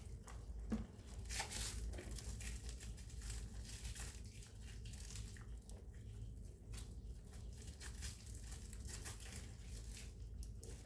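Irregular rustling and crinkling handling noises, with short scrapes and clicks, over a steady low hum.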